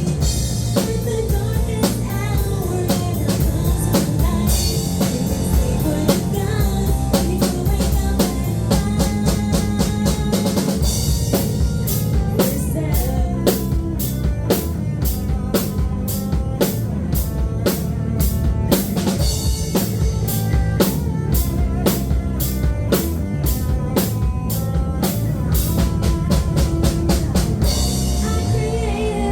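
Band playing live, an instrumental passage with the drum kit loudest: fast, even snare and bass-drum hits over a steady bass line.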